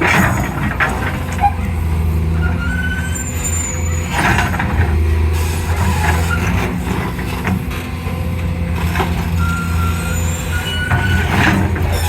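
Excavator's diesel engine running steadily, with scattered knocks and a few short high squeaks.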